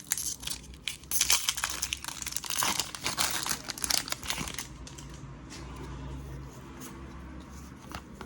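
Foil wrapper of a Pokémon card booster pack being torn open and crinkled in the hands, a busy run of crackling for about four and a half seconds, then much quieter.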